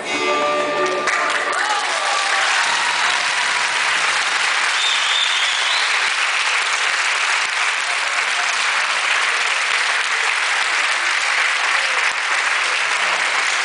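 A Renaissance dance tune from a small ensemble of plucked and bowed instruments ends about a second in, followed by a crowd applauding steadily.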